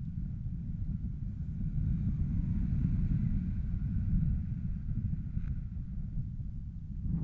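Wind buffeting an action camera's microphone in flight under a tandem paraglider: a steady low rumble.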